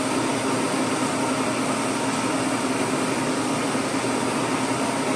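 Horizontal boring mill running steadily on a finish pass: the boring bar turns at a little over 300 RPM and cuts five thousandths a side out of a welded-up steel bore in a Caterpillar 950 Z-link. The machine noise is even, with no breaks or changes.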